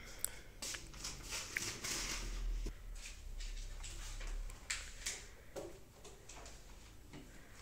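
Light, scattered knocks and clinks of kitchenware being handled at a gas stove: a clay bowl set down and a steel pot lid and wok moved, over a faint low hum.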